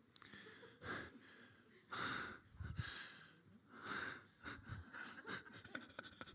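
A person breathing close to a microphone: several short, audible breaths a second or two apart, with faint clicks near the end.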